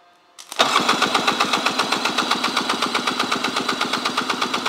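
1999 Polaris SLH 700 two-stroke twin engine being cranked over for a compression test on its PTO-side cylinder: a rapid, even chuffing of about seven or eight beats a second, starting about half a second in.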